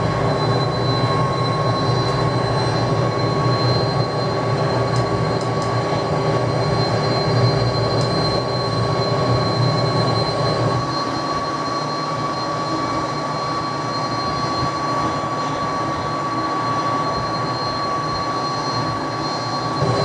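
McDonnell Douglas DC-10 jet engines running steadily: a broad rumble with a steady high whine over it, the deepest part of the rumble easing a little about halfway through.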